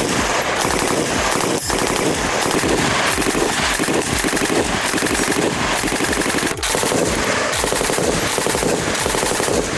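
PKM general-purpose machine gun firing 7.62x54R on full automatic in long, rapid bursts, broken by very brief pauses about one and a half seconds in and again about six and a half seconds in.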